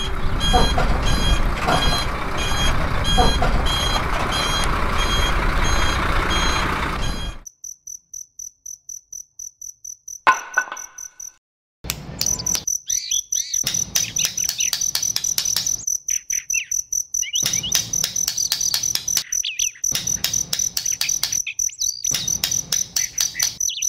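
Crickets chirping in a fast, pulsing high trill, with fine clicks alongside. For the first seven seconds a louder, steady mechanical noise with a faint repeating beat covers it, and the chirping breaks off briefly about eleven seconds in.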